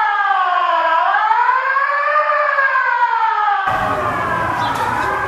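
Electronic fire alarm sounder wailing, its pitch sweeping slowly down and back up. About three and a half seconds in, a rush of background noise joins the alarm tone.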